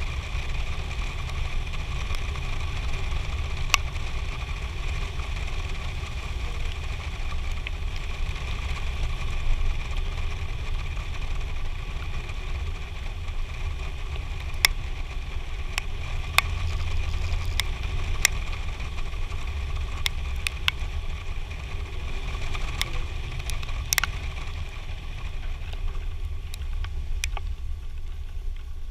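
Gusty storm wind buffeting the microphone of a vehicle-mounted camera as a low, uneven rumble over a steady faint hum. About a dozen sharp ticks of raindrops hitting the camera are scattered through it, most of them in the second half.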